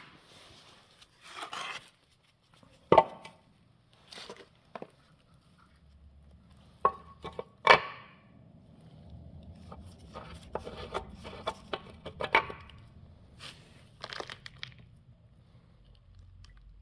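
Hand work on a manual gearbox: irregular sharp knocks and clinks of metal parts and tools, some with a brief ring, between stretches of rustling and scraping.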